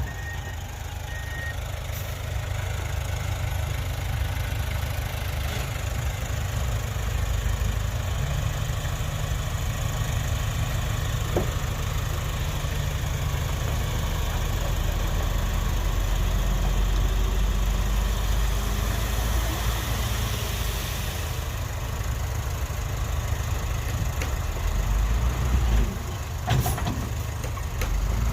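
Heavy diesel engine of earthmoving equipment running steadily with a low rumble, with a few short knocks near the end.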